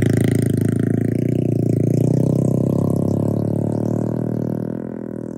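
A vehicle engine running steadily close by, then fading away over the last second or so.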